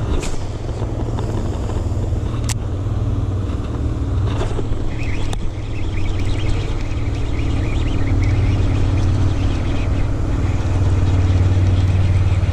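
Boat motor running with a steady low hum that grows a little louder near the end, with a few sharp clicks scattered through it.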